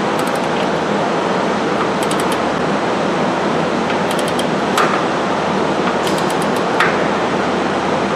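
A ratcheting wrench tightening a suspension bolt, which is to be torqued to 111 ft-lb: short runs of quick ratchet clicks about every two seconds, with two single sharper clicks a little after the middle. A steady rushing background noise underlies it all.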